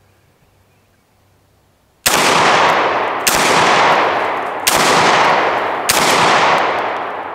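Garaysar Fear 116 semi-automatic 12-gauge shotgun firing buckshot: about two seconds in, four shots come in quick succession, roughly 1.2 to 1.4 seconds apart, each followed by a long echo that dies away.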